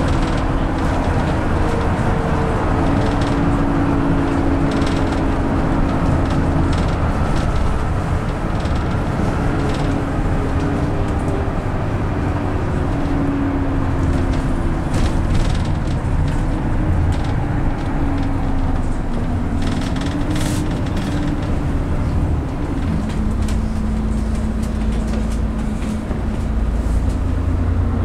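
Inside a moving bus: steady engine drone and road rumble, the engine's tone slowly drifting and stepping in pitch as the bus changes speed, with a few light rattles in the middle.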